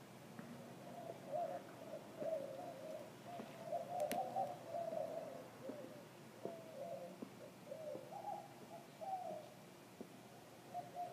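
Doves cooing repeatedly, in a series of low, wavering calls. A single sharp click comes about four seconds in.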